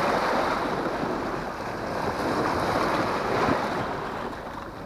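Sea waves washing and breaking over a rock breakwater: a continuous rushing surf that swells and eases.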